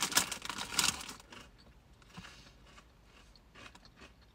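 A hand rummaging in a crinkly crisp packet while lattice-cut crisps are chewed with a crunch, loudest in the first second and a half, then a few faint crackles.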